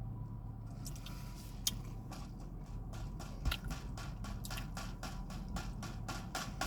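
A person chewing food close to the microphone: a rapid run of mouth clicks, several a second, starting about a second in.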